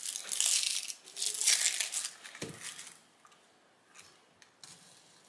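Dry, papery onion skin being peeled and torn off by hand, crinkling and tearing in two bursts over the first two seconds. A single thump follows about halfway, then a few faint knife cuts through the onion onto a plastic cutting board near the end.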